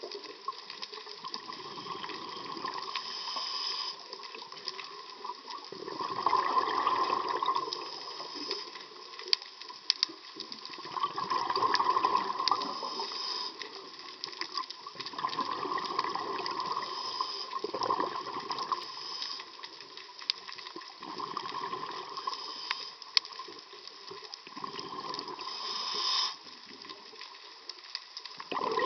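Water sloshing and bubbling in swells roughly every four to five seconds, with a few sharp clicks here and there.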